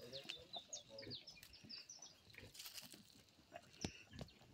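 Faint birdsong: quick, high chirps that fall in pitch, repeated many times and thickest in the first couple of seconds, over scattered faint clicks and knocks.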